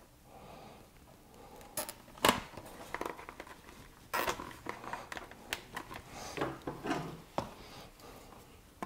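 Small clicks, taps and rustles of hands fitting a part on a motorcycle's front fork. Sharper clicks come about two seconds in and again around four seconds, with lighter ticks after.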